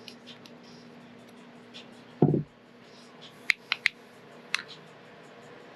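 Workshop handling noises: one dull thump about two seconds in, then a quick run of sharp clicks, as tools and engine parts are set down and handled.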